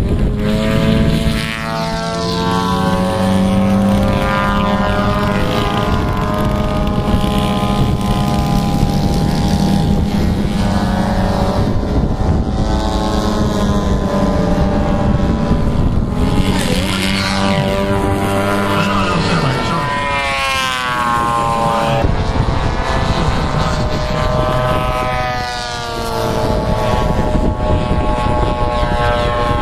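Several radio-control aerobatic model airplanes' engines running at once, their overlapping pitches holding fairly steady at first, then rising and falling as the throttles are worked and the planes fly.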